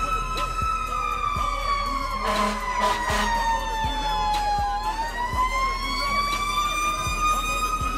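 Fire truck siren wailing: its pitch falls slowly for about four seconds, then turns and rises back up and holds. Evenly spaced thumps run underneath about once a second.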